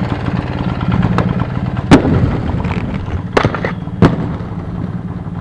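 Small two-stroke Tomos moped engine idling with a steady pulsing rumble. Over it come four sharp cracks from a skater's inline skates landing on brick, the loudest about two seconds in.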